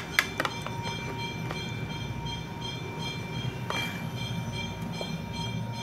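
A spoon clicks against a plastic bowl a few times as a cutlet patty is turned in cornflour slurry. About four seconds in there is a brief rustle as the patty is pressed into breadcrumbs. A steady low mechanical hum runs underneath.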